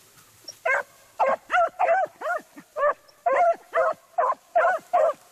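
Beagle hound baying in quick short calls, about a dozen at two to three a second, each rising and falling in pitch, starting just under a second in: the hound giving tongue while trailing rabbit scent.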